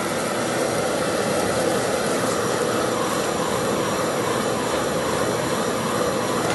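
High-pressure gas burner flame running with a steady rushing noise under a frying pan.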